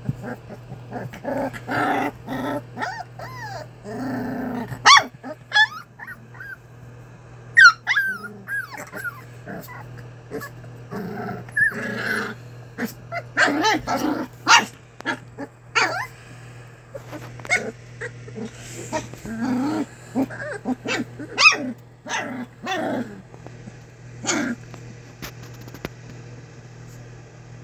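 English springer spaniel puppies play-fighting, with a string of small growls and high-pitched yips and squeals coming in short, irregular bursts.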